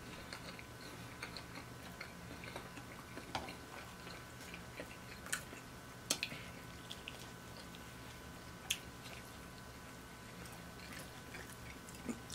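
Quiet close-up eating sounds: soft chewing with scattered small clicks and wet smacks as a pepperoni calzone is torn apart by hand, over a faint steady room hum.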